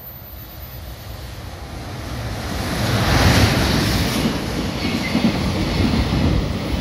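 JR Freight EF210 electric locomotive passing close by at speed. It grows louder to a peak about three seconds in. The steady rumble and clatter of its container wagons rolling over the rails follows.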